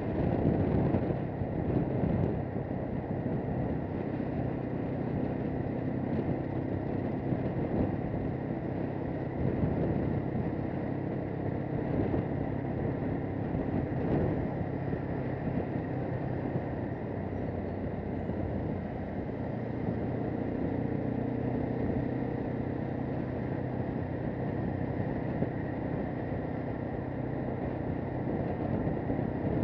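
AKT 250 Adventour motorcycle's single-cylinder 250 cc engine running steadily at cruising speed, mixed with wind noise on the microphone.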